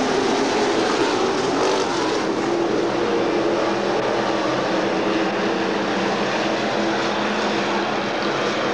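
A pack of IMCA stock cars racing together on a dirt oval, their engines running at speed in a loud, steady, layered din.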